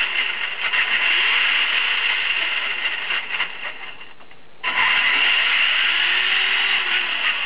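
Twin electric motors and geared drivetrain of a Traxxas E-Maxx 3906 RC truck, running with a high whine. It runs in reverse first, eases off about three and a half seconds in, then after a short pause starts up again abruptly about four and a half seconds in.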